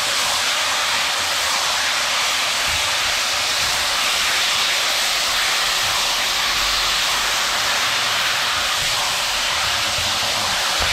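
Chicken pieces sizzling in hot oil and caramelized brown sugar in a pot, a steady hiss as the meat browns.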